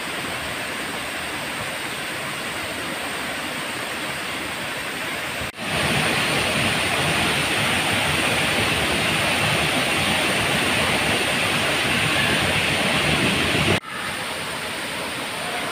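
Heavy rain falling steadily, an even hiss. It drops out abruptly for an instant about five and a half seconds in and again near the end, and is louder in between.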